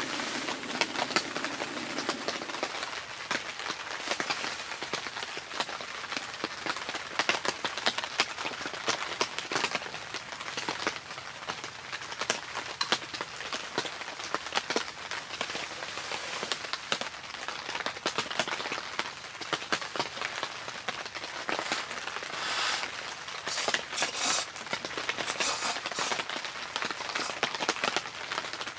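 Rain falling on the fabric of a Helsport Varanger Dome tent shelter: a dense, steady patter of drops. A gas stove's burner hiss stops about two seconds in.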